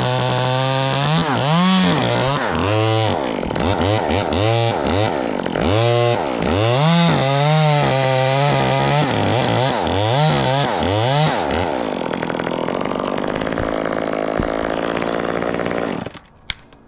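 Chainsaw running, its revs rising and falling again and again for about ten seconds, then settling before it cuts off near the end.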